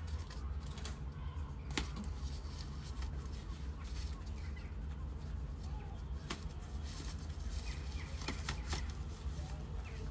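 Kittens scuffling and wrestling on a rug and dry leaves: scattered soft rustles and sharp little clicks, with a few louder ones about two seconds in, about six seconds in and twice near the end, over a steady low outdoor rumble.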